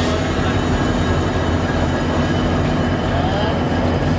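Diesel locomotive engines idling close by with a steady low drone: WDG4 banker locomotives, whose EMD two-stroke V16 engines run at idle while the coupling is made.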